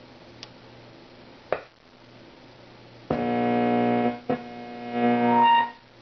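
Philco 38-7XX tube radio being tuned across the dial: low hiss and hum between stations with a couple of short crackles. About three seconds in, a station playing music with held keyboard-like notes comes in loud. It cuts off after a couple of seconds as the dial moves past it.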